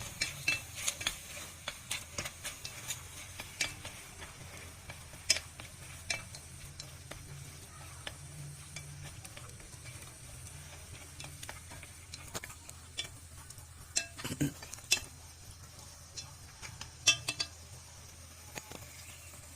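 Utensil stirring porridge in a cooking pot: irregular clinks and scrapes against the pot, with a few sharper knocks, over a faint steady hiss.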